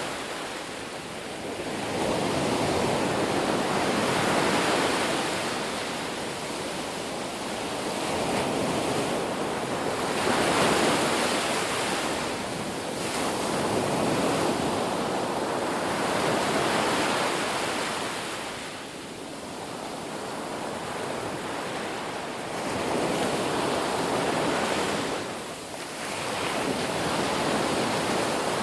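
Ocean surf: waves breaking and washing in, the rush swelling and easing about every five seconds.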